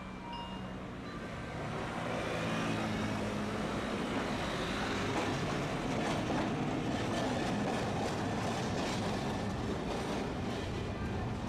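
Streetcar running on street track: a steady motor hum and wheel-on-rail noise that grows over the first two seconds and then holds, with clicking of wheels over rail joints in the second half.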